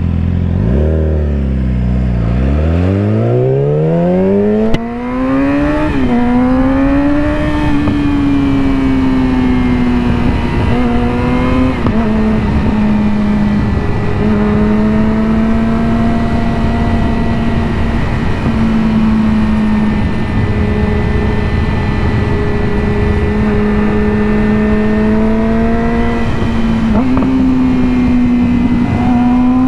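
2020 Yamaha R6's inline-four engine through an M4 slip-on exhaust with the catalytic converter deleted, revving hard with a steeply rising pitch for the first few seconds. It then holds a steady high-revving pitch, with a couple of brief changes in pitch, over a rush of wind noise.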